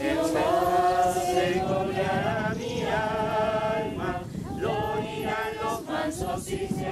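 A group of people singing a Spanish hymn together, holding long notes and moving between them in a slow melody.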